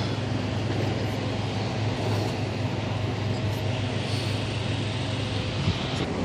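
Steady drone of highway traffic, a continuous low rumble with a hiss above it.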